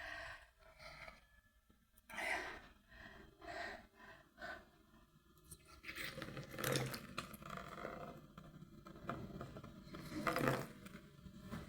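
Nasal sounds from a congested person flushing her nose with saline solution: a run of short bursts, with two louder ones about six to seven and ten to eleven seconds in. This attempt does not clear the mucus; she says it lacked force.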